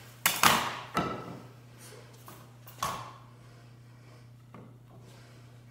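Clatter and knocks of cut wooden supports being handled and set down: a loud clatter about a quarter second in, another knock about a second in and a third near three seconds. A steady low hum runs underneath.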